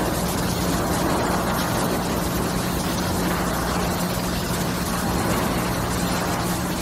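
Machinery of a lumber-dipping line running: a steady industrial hum with a constant low drone.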